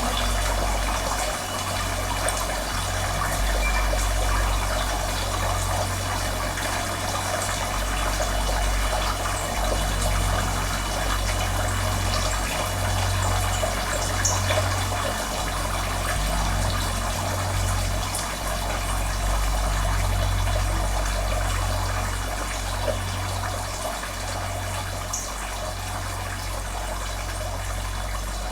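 Running water, a steady trickling rush over an uneven low rumble.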